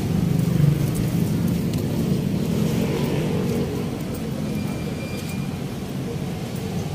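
Town street traffic: motorcycles and motorized tricycles running and passing, a steady low engine rumble.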